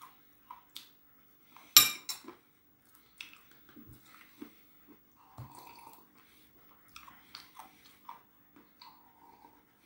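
A person chewing a mouthful of crunchy cheese-flavoured peanuts with small crackling crunches, and one sharp clink about two seconds in.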